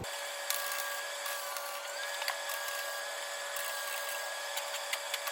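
Flux-core wire welder arc crackling and sizzling steadily with many small pops while braces are welded onto a steel frame.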